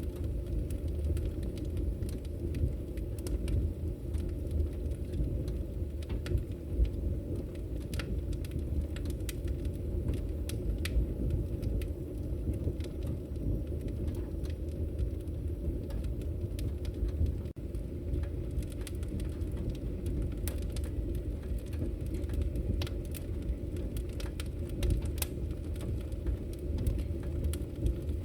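Fire burning in a fireplace: a steady low rumble of flames with scattered sharp crackles and pops, more frequent in the last few seconds.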